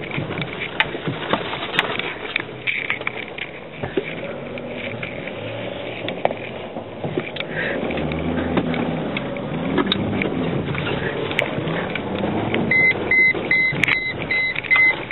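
Off-road vehicle driving over a rough dirt track, heard from inside the cabin: engine noise with scattered clicks and knocks. Near the end an electronic beep starts repeating about three times a second.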